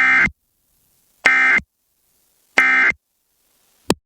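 Emergency Alert System end-of-message data bursts: three short, identical digital screeches about 1.3 s apart, marking the end of the alert. A brief click follows near the end.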